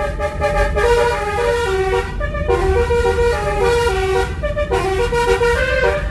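Basuri musical air horn playing a tune of quick stepped notes, with short breaks about two seconds in and just before five seconds, over a steady low rumble.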